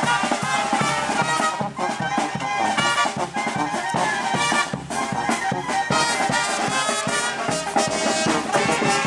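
Brass band playing a cumbia: many horns together over a steady, even beat.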